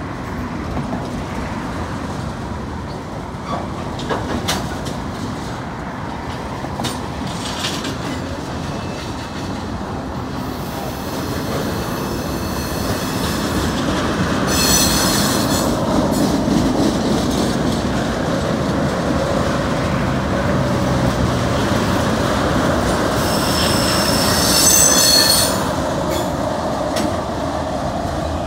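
Cars of a Norfolk Southern manifest freight train rolling past, a steady rumble of wheels on rail with occasional clicks. Wheel flange squeal rings out twice: briefly about halfway through, and longer near the end.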